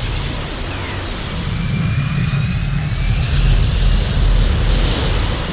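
Nu-class attack shuttle takeoff sound effect: a deep engine rumble under a thin high whine that glides slightly upward. It swells to its loudest about two thirds of the way in, then eases off.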